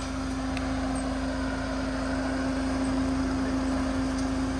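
Mahindra Scorpio N SUV's engine running at low revs as the vehicle crawls slowly down into a muddy rut: a steady hum that grows a little louder in the second half.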